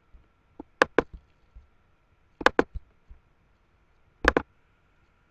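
Computer mouse clicking, three quick double clicks spaced a second and a half to two seconds apart.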